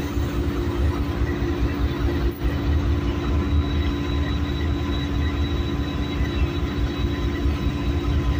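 Diesel locomotive engine running steadily: a low rumble under a steady hum.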